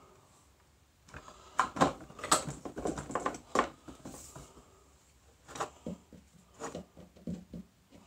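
Clicks and clatter of electrical cords and connectors being handled on a workbench, loudest about two seconds in, followed by a run of softer, duller knocks over the last few seconds.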